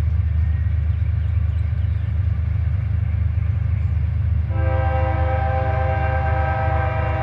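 Locomotive air horn sounding a multi-note chord, beginning about four and a half seconds in and held, as the train approaches a grade crossing. A steady low rumble runs under it.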